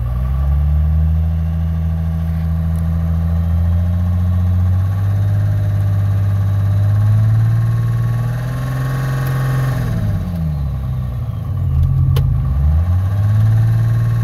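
Cummins diesel swapped into a Ford running in Park, its note steady at first, then its speed dips and climbs back near the end, with one sharp click about twelve seconds in. The engine has a tick in Park that is hard to pick out.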